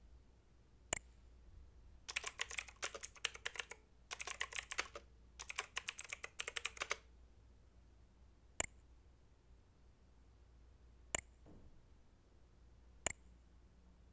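Typing on a computer keyboard in three quick runs of keystrokes, with single mouse clicks about a second in and three more spaced a few seconds apart near the end, over a faint low hum.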